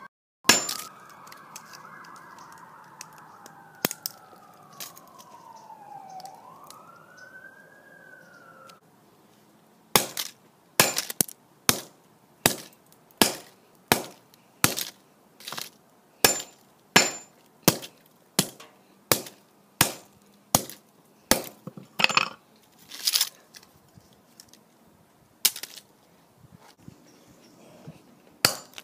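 Wooden-handled hammer smashing a cheap mobile phone on pebbled concrete, with glass cracking and shattering; a few blows early on, then a steady run of strikes about two a second from about ten seconds in. For the first nine seconds, a siren wails, falling and then rising in pitch.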